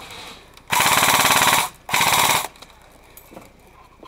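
Airsoft gun firing full-auto bursts of rapid shots: one burst about a second long, then a shorter one just after.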